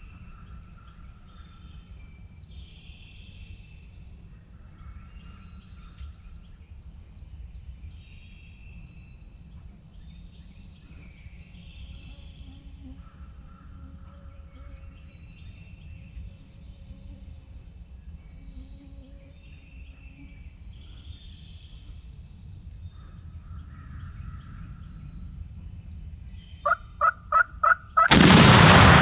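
Songbirds singing repeatedly at daybreak, then near the end a wild turkey gobbler gobbles loud and close in a quick rattle of five notes. Right after it comes a single, very loud shotgun blast that rings out and echoes.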